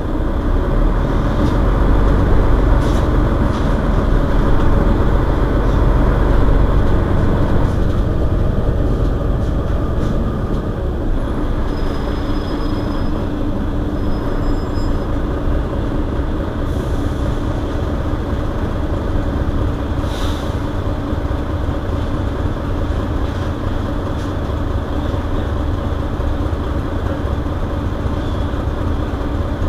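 Mercedes-Benz Citaro Facelift city bus engine idling while the bus stands at a stop. It is a steady low rumble, somewhat louder for the first several seconds, then settling into a slightly quieter, even idle.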